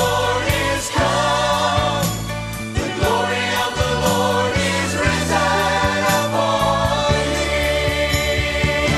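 Contemporary worship music: a choir singing over a band with bass and drums at a steady beat.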